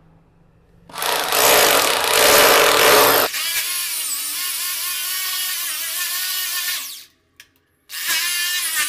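Corded electric drill with a 6 mm bit drilling into floor tile. It opens with about two seconds of loud, rough drilling, then settles into a steadier whine. It stops about seven seconds in and starts again a second later for the next hole.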